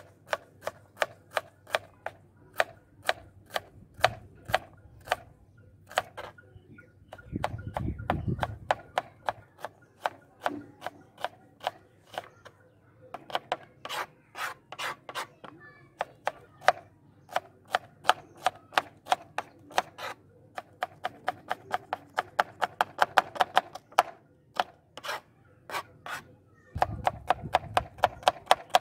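Knife slicing small onions on a plastic cutting board: sharp taps of the blade striking the board, in uneven runs of up to several a second. Two brief low rumbles, about eight seconds in and near the end.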